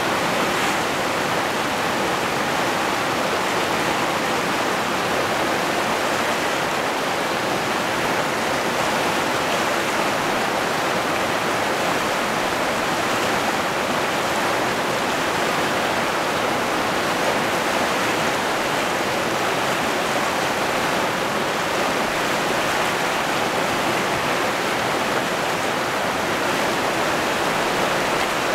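River rapids rushing over boulders: a steady, unbroken rush of fast-flowing water.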